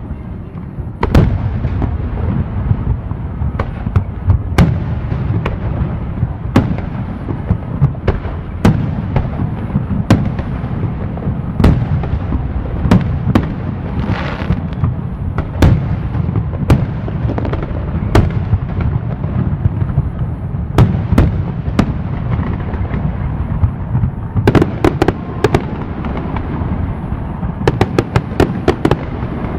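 Fireworks going off: a continuous low rumble of bursts with sharp bangs every second or so. There is a brief hiss about fourteen seconds in, and clusters of rapid crackling near the end.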